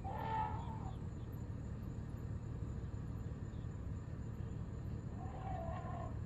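African elephants trumpeting out of sight: one short trumpet right at the start and another near the end, each under a second long. A steady low rumble runs beneath them.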